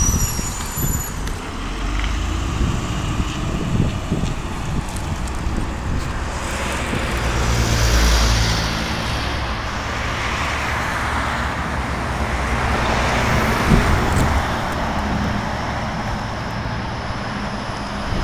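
Articulated MAZ-105 city bus's diesel engine pulling away from a stop, with road traffic around it; the sound swells about eight seconds in and then settles to a steady run.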